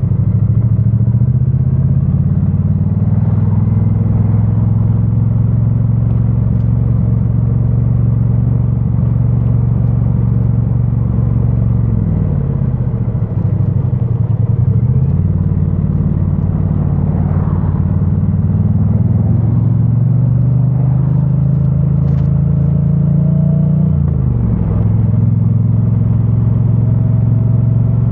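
2022 Triumph Bonneville T100's 900cc parallel-twin engine running on stock exhaust while riding, heard from a microphone in the rider's backpack. The engine note is steady, then falls and climbs back about twelve seconds in, and drops and picks up again near the end.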